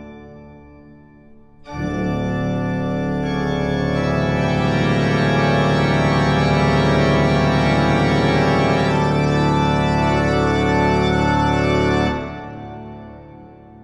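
Background music of sustained organ chords. A chord dies away over the first second or so; a loud held chord comes in about two seconds in, swells, holds steady, then stops about twelve seconds in and rings out.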